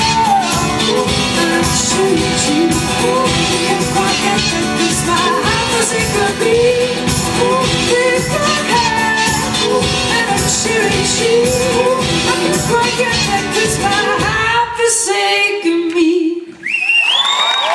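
Live pop-rock song with a woman singing over a steady, pounding beat. The music winds down to a held last note and stops near the end, where audience whoops and cheering break out.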